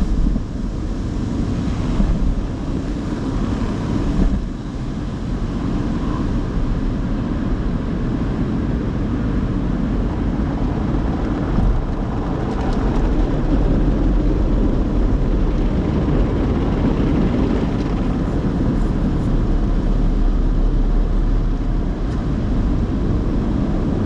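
Automatic tunnel car wash heard from inside the car: a steady rushing rumble of the wash equipment, water spray and brushes working over the car's body.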